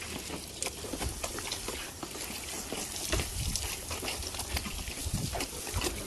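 Water splashing and trickling as a car is washed by hand, with scattered small knocks and clicks.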